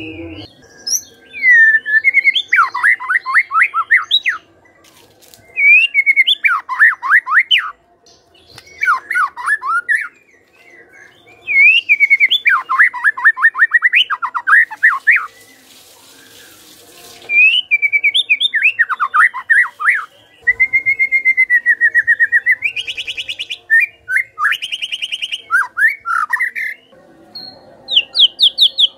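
White-rumped shama singing loudly in repeated phrases of quick falling notes, several a second, with short pauses between phrases. About two-thirds of the way through it holds a whistle that rises into higher, faster notes.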